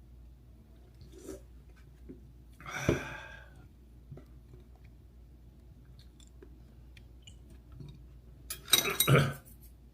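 Close-miked chewing and mouth sounds of someone eating dumplings, with faint scattered ticks. A short vocal sound comes about three seconds in, and a loud burst of sharp clicking and rustling comes near the end.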